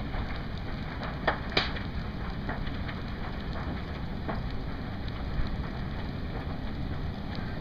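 Large wooden structure burning: a steady rushing noise of the fire with scattered crackles and two sharp pops between one and two seconds in.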